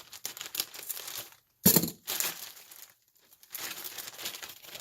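Crinkling and rustling of plastic packaging being handled and opened, with a sharp loud rustle about a second and a half in; the sound stops dead twice for a moment.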